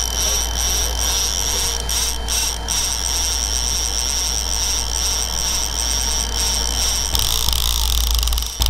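Boat engine running steadily under way: a low drone with a thin high whine above it, the sound shifting and brightening about seven seconds in.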